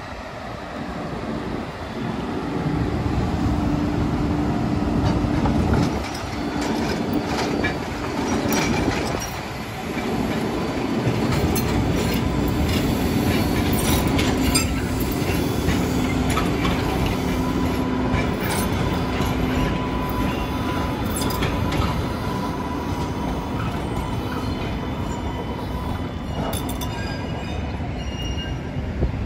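MBTA Green Line Type 7 light rail train of two coupled cars passing close by at low speed on street track: a steady motor hum with wheels clicking over rail joints and crossings, and a thin steady wheel squeal through the middle as it takes the curve across the intersection.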